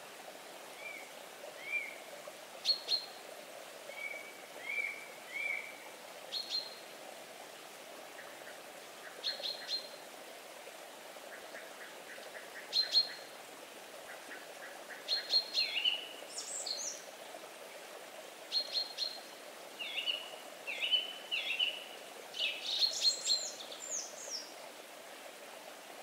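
Several songbirds chirping and calling: short sharp chirps, rising whistled notes and quick trills, coming more often in the second half, over faint steady background noise.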